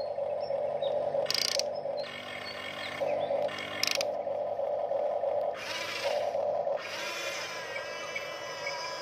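Huina RC toy excavator's small electric motors and plastic gearboxes whining in stop-start runs as the bucket curls and the arm lifts. There are short bursts of gear rattle, the first about a second in and the longest near the middle.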